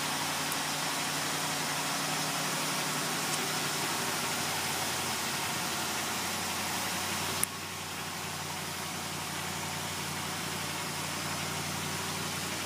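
Auburn Boat Tail Speedster's engine idling steadily under a heavy hiss, with a sharp click about seven seconds in, after which the hiss eases a little.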